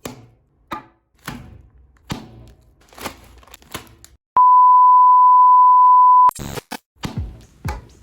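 A steady, single-pitched beep tone held for about two seconds in the middle, the loudest sound here. Before and after it comes a string of sharp knocks and low thuds a little under a second apart, with music.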